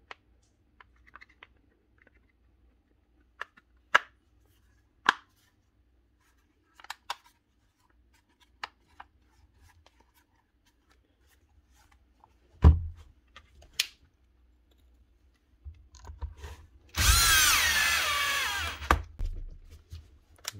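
Clicks and taps of a cordless angle grinder's plastic housing halves being handled and pressed together, with a heavier knock about halfway through. Near the end a cordless drill-driver whirs for about two seconds, its pitch wavering, as it drives a housing screw.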